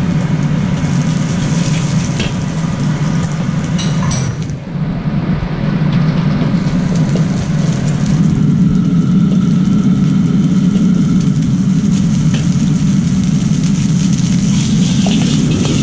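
Commercial gas wok burner running with a loud, steady low rush under the wok, while a steel ladle scrapes and clinks against the wok stirring fried rice, with sharper clinks about four seconds in and near the end.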